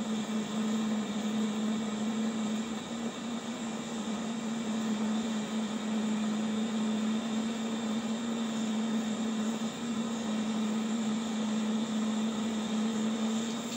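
Handheld gas blowtorch burning steadily on a bandsaw blade joint, heating it for silver soldering: a constant hissing rush with a steady hum.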